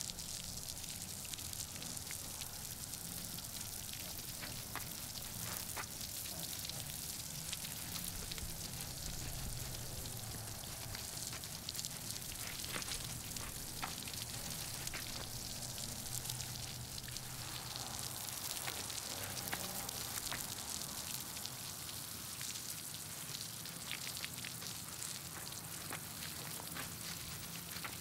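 Water spraying from a garden hose onto a dirt road: a steady hiss with scattered small ticks.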